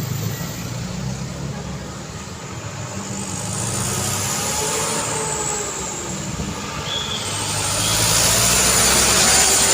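Road traffic with trucks and cars passing and engines running steadily. It gets louder from about seven seconds in as a vehicle comes close.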